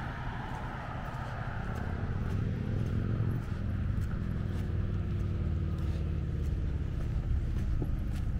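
Road traffic: a car's tyre noise fading away over the first few seconds, under a steady low rumble.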